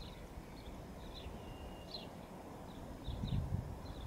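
Small birds chirping in short high calls, with one longer held note about a second in. A low rumble rises near the end.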